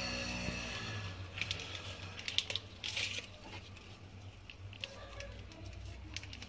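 A hand squeezing and rubbing crumbly butter-and-flour dough in a bowl: soft squishing with scattered crackles, busiest from about one to three seconds in, then fainter. Faint background music fades out in the first second.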